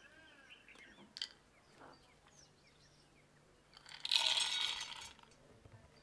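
Shelled peanuts poured from a bowl into a stainless steel grinder jar: a dense rattle of kernels striking the metal for about a second, a little past halfway. A few faint clicks come before it.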